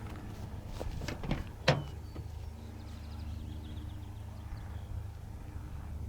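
A vehicle running with a steady low rumble, and a few clicks and knocks in the first two seconds, the loudest a sharp knock near the two-second mark.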